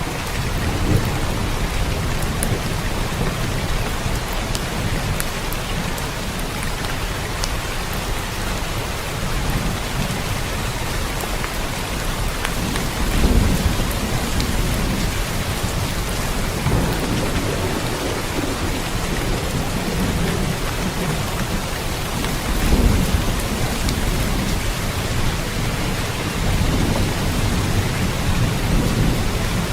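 Steady rain falling, with low thunder rumbles swelling up several times, most strongly about halfway through and again near the end.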